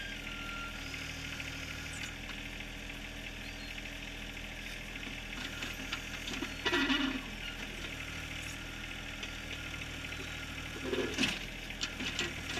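John Deere 1023R compact tractor's three-cylinder diesel engine running steadily under backhoe work, with a louder half-second scrape about seven seconds in and several sharp knocks and scrapes of the bucket on rock near the end.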